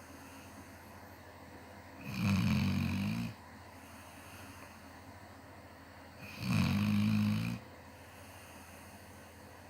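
Snoring: two long, low-pitched snores about four seconds apart, each lasting a little over a second, with quiet breathing between them.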